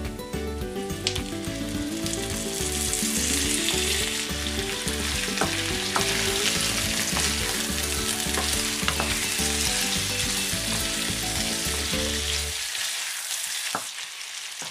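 Raw chicken pieces sizzling in hot oil in a nonstick frying pan with sautéed onion and garlic, the sizzle building about two seconds in as the meat goes down. A wooden spatula stirs and turns the pieces, knocking against the pan a few times.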